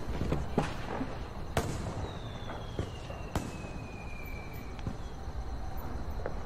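Firecrackers going off now and then: about half a dozen sharp cracks at irregular intervals. In the middle a thin whistle falls slowly in pitch over about three seconds.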